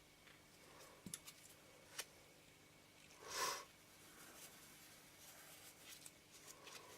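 Near silence with faint small clicks and one short, soft rush of air about three and a half seconds in: quiet handling while lens elements are wiped with lens tissue.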